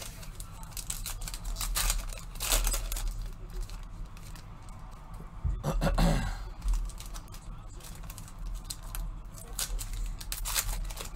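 Football trading card packs being handled: foil wrappers tearing and crinkling and cards flicked through by hand, a run of quick rustles and snaps over a low steady hum.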